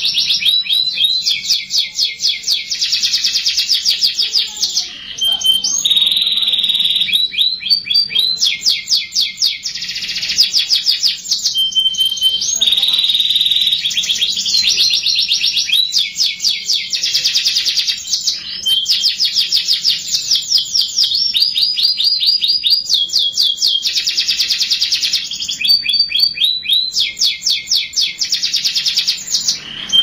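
Domestic canary singing a long, continuous song of fast rolling trills, broken now and then by a held whistled note about a second long and by short pauses.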